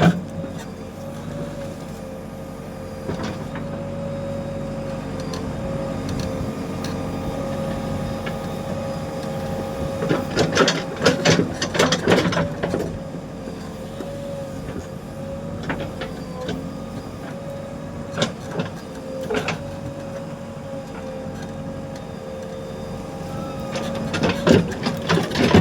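JCB 3DX backhoe loader's diesel engine running steadily under a constant hydraulic whine, with bursts of sharp clanks and knocks about ten seconds in, a few more later, and again near the end.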